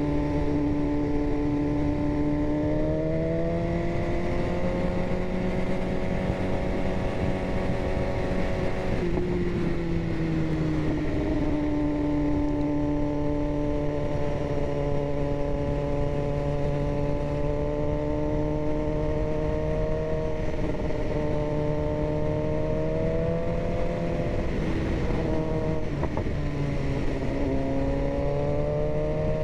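BMW S1000RR inline-four sport-bike engine running under way, its note rising slowly, dropping about ten seconds in, then dipping and climbing again near the end as the throttle changes. Steady wind rumble on the microphone underneath.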